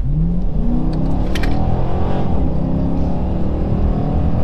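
A 2019 Dodge Charger Pursuit's 5.7-litre Hemi V8 with the rear mufflers deleted, pulling under throttle, heard from inside the cabin with the windows up. The exhaust note rises in pitch over the first half second, then holds fairly steady. There is a brief click about a second and a half in.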